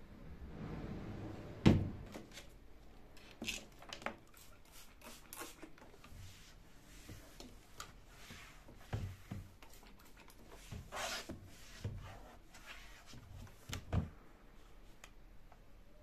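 Wooden drawer handled: it is shut with one sharp knock about two seconds in, then scattered light clicks and rubbing on the drawer, with a short hiss of a trigger spray bottle spritzing the drawer's bottom near the middle.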